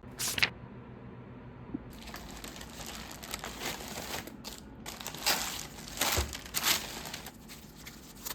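Packaging being crinkled and rustled as it is handled: a sharp crackle at the start, steady rustling from about two seconds in, and several louder crinkles near the middle and toward the end.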